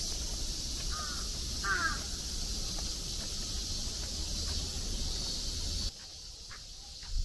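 A crow cawing twice about a second in, the second call louder, over a steady high-pitched hiss of outdoor background. The background drops off abruptly near the end.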